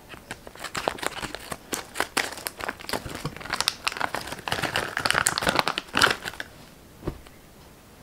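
Plastic parts packet and bubble wrap crinkling and crackling as the packet is cut open with scissors and a small part is pulled out. The crackling stops about six and a half seconds in, and a single soft thump follows near the end.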